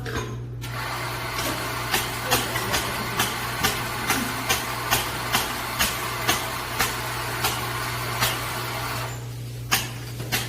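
Coffee grinder running steadily for about eight and a half seconds, with a sharp click about two to three times a second, typical of a doser lever being flicked to dispense ground coffee; it stops near the end, followed by a few separate knocks.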